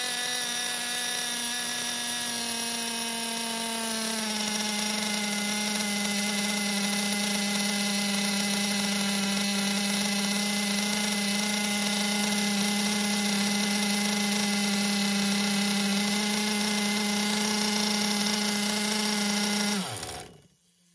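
Pro 21 nitro (glow-fuel) two-stroke engine on a bench, running steadily on 20% nitro fuel with a high, even buzz through its tuned pipe. Its pitch settles slightly lower a few seconds in. Near the end the pitch falls and the engine stops.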